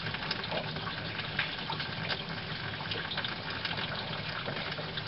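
Water running steadily through a semi-automatic washing machine, with a few faint clicks on top.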